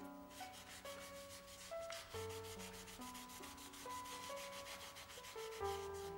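A hand rubbing quickly back and forth over a sheet of tracing paper pressed against a plastered wall, about five strokes a second. Soft instrumental music with long held notes plays underneath.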